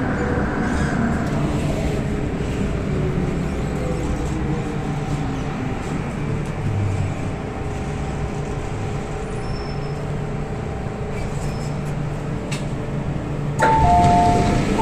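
MTR Island Line M-train's traction motors whining and falling in pitch as the train brakes to a stop, then the steady hum of the standing car. Near the end, the two-tone door-closing chime beeps.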